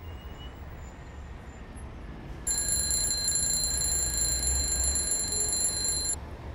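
Smartphone alarm ringing with a steady high-pitched tone over a low rumble. It starts about two and a half seconds in and cuts off suddenly as the alarm is dismissed.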